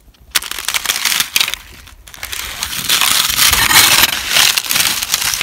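Loud crackling and crinkling of a thin disposable plastic bowl flexing in a hand close to the microphone. It comes in two stretches with a short break about two seconds in.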